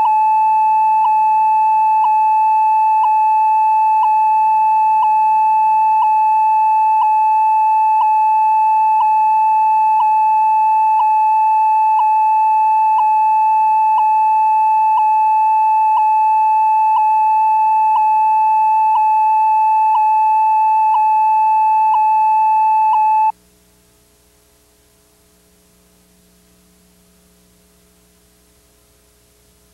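Steady high beep tone recorded on the end of a VHS tape (the 'White Screen of Death' tone), with a small click about once a second. The tone cuts off abruptly about 23 seconds in, leaving only a faint hum.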